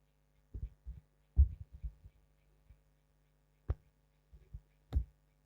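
Irregular low thumps, a few of them sharper knocks, over a faint steady hum: a cluster in the first two seconds, then single knocks later on.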